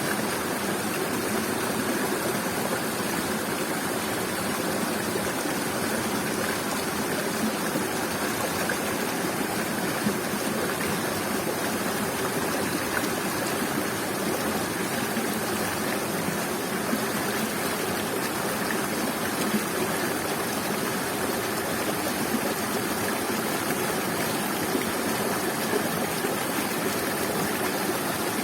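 Waterfall and stream water rushing steadily, an unbroken hiss and splash.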